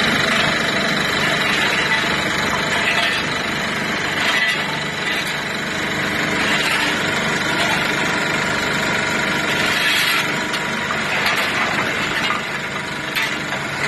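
Engine of a road asphalt recycling repair machine running steadily.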